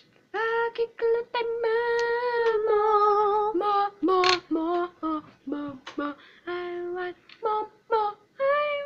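A child singing a wordless tune: one long held note at the start, then a run of shorter notes.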